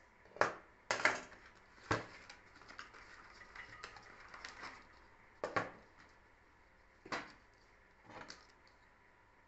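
A small cardboard box being opened and a plastic power supply unit lifted out onto a table: about six sharp knocks and taps, with rustling of cardboard and paper between them.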